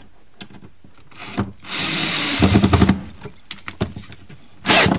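Power drill driving a screw to fasten a European cabinet hinge's mounting plate: it runs for about a second and a half, then gives a short second burst near the end, with a few light knocks of handling in between.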